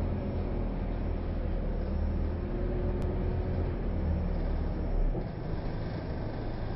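Bus interior: a steady low drone of engine and road noise heard from inside the cabin. The deepest part of the rumble drops away about five seconds in.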